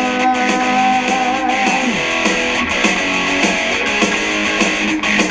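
Rock song's instrumental passage between vocal lines: guitars playing sustained notes over a steady band backing.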